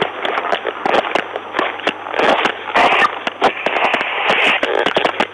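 Dense crackling static and rustle on a police dashcam's microphone feed, with many sharp clicks over a steady hiss.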